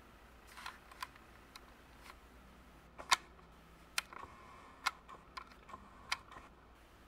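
Handling noise from a camera being adjusted and pulled back to reframe a page: a dozen or so light clicks and taps at irregular intervals, the sharpest about three seconds in.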